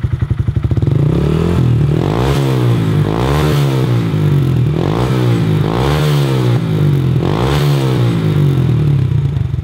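A 2015 Honda Grom's 125 cc single-cylinder four-stroke engine, breathing through an FMF Factory 4.1 full exhaust with its sound insert fitted, idles for about a second. The throttle is then blipped several times, the revs rising and falling about once a second.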